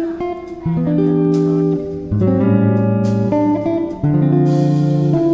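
Background music led by guitar, its notes and chords changing about every second.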